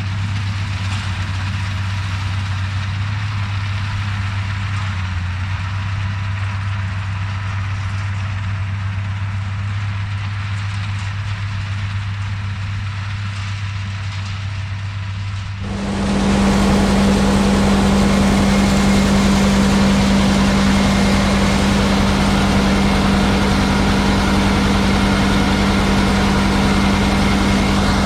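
Self-propelled swather's engine running steadily while cutting in the field. About halfway through the sound switches abruptly to a louder, higher-pitched running note.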